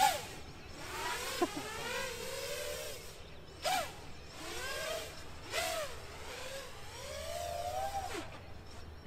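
A 7-inch FPV quadcopter's brushless motors and propellers whining as it flies, the pitch sweeping up and down with the throttle. A few short louder bursts come with sharp throttle punches, near the start and twice more in the middle.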